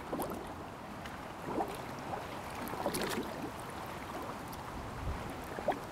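Choppy lake water lapping and slapping in a strong wind, with wind rumbling on the microphone. A few small splashes stand out from the steady wash.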